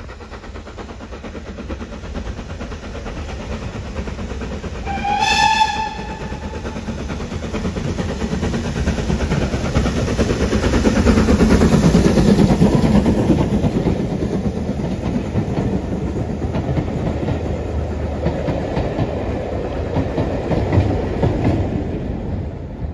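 BR Standard 4 tank steam locomotive giving one short whistle blast about five seconds in, then passing close by hauling a train of coaches, loudest as the engine goes past, with the coaches rumbling by after it.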